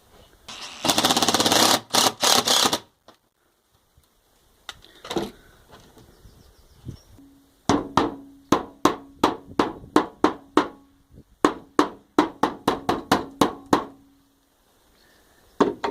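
Cordless impact driver driving screws through a wooden plate: a burst of rapid hammering about a second in, then after a pause a run of slower, separate impacts, about three a second, over the motor's hum.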